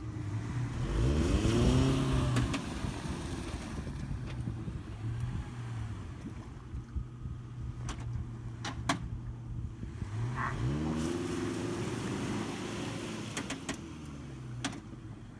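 Car engine running and revving up twice, once about a second in and again around ten seconds, settling back to a steady run in between, with a few sharp clicks.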